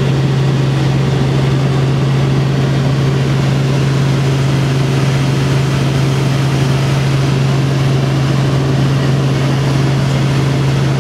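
Helicopter in flight heard from inside the cabin: a loud, steady drone of engine and rotors with a strong low hum.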